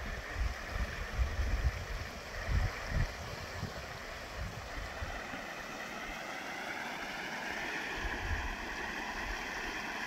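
Small waterfall spilling into a stream, a steady rush of falling water, with wind rumbling on the microphone in the first few seconds.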